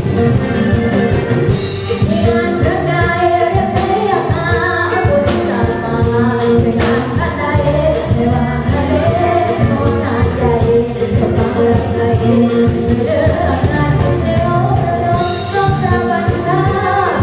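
Live Isan music: a woman singing into a microphone over a band with a drum kit and a khaen (bamboo mouth organ), the khaen holding sustained tones under the sung melody with a steady beat.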